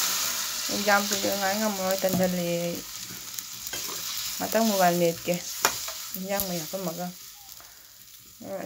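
Curry sizzling in a metal wok over a wood fire while a ladle stirs and scrapes through it, with a few sharp clicks of metal on the pan. Wavering pitched tones sound in three stretches, and the sizzle fades near the end.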